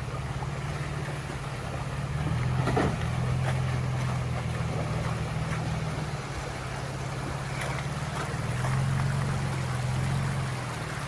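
Nissan Xterra's engine running at low revs while crawling along a dirt trail, a steady drone that swells twice, with a few sharp knocks and rattles, the loudest about three seconds in.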